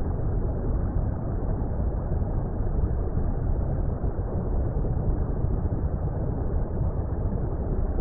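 Steady, muffled water rumble, a deep underwater-style ambience noise with no high end and no separate events.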